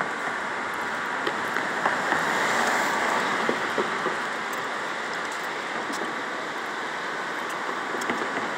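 Fast-moving river water rushing steadily, an even hiss with faint scattered ticks.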